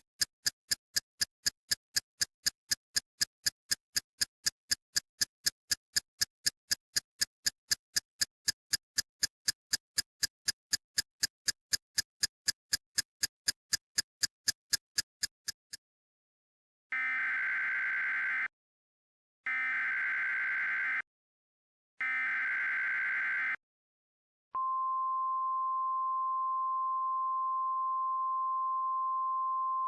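Fast, even ticking, about four ticks a second, which stops about 16 seconds in. Then three short bursts of Emergency Alert System SAME header data, followed from about 25 seconds in by the steady single-pitch 1050 Hz NOAA Weather Radio warning alarm tone, which announces the flash flood warning.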